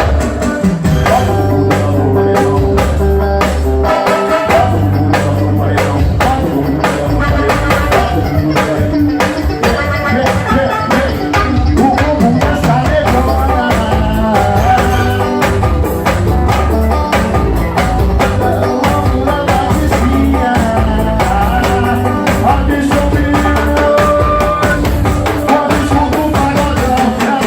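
Live band music: a drum kit keeps a steady beat under a strong bass and a melodic lead.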